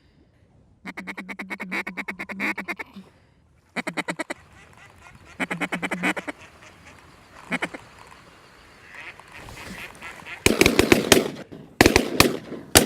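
Ducks quacking in rapid runs of a dozen or so evenly spaced quacks, with goose-like honks mixed in. Near the end a louder cluster of sharp cracks and clatter comes in.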